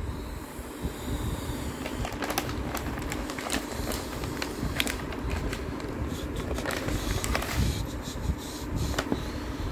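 Brown paper takeaway bag crinkling and rustling in a run of sharp crackles from about two seconds in, as its taped-shut top is pulled open by hand. A steady low rumble runs underneath.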